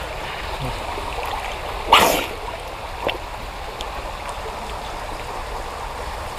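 River water running steadily, with a brief splash about two seconds in and a fainter one about a second later.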